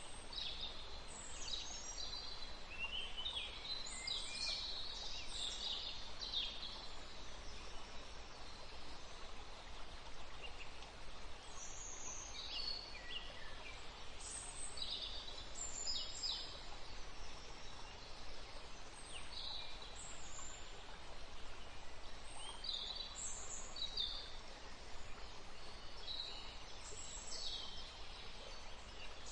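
Forest ambience: many birds chirping and trilling in short, high calls scattered throughout, over a steady soft noise bed.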